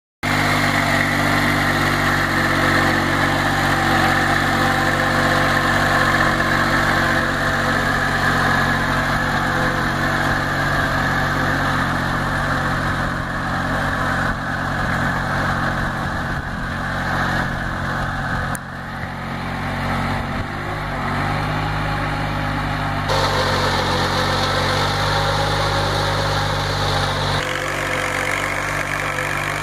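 Small compact tractor's diesel engine running steadily under load while pulling a tine cultivator through dry soil. The engine note shifts abruptly a few times.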